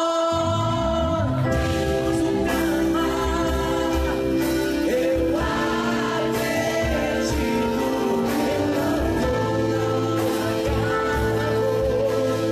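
Live gospel worship band playing, with singing over it; bass and drums come in just after the start.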